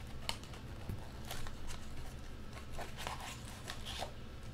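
Light handling sounds of trading-card boxes and packs: soft, scattered clicks and rustles, about two a second, over a low steady hum.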